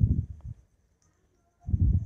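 Two low, muffled thumps about a second and a half apart, typical of the microphone being handled as it is moved.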